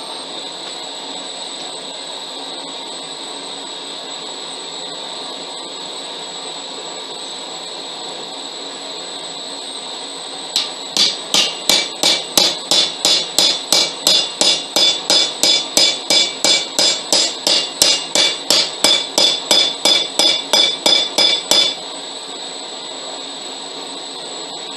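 Blacksmith's hammer striking a red-hot steel bar on an anvil: a fast, even run of around thirty ringing blows, about three a second, starting about ten seconds in and stopping about eleven seconds later. A steady mechanical hum runs underneath throughout.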